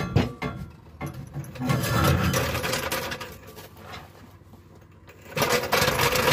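Steel-wheeled floor jack loaded with a Dana 35 rear axle, rolled across concrete with a rattling rumble in two spells, the second starting about five seconds in with a thin squeal. A few metal knocks come at the start.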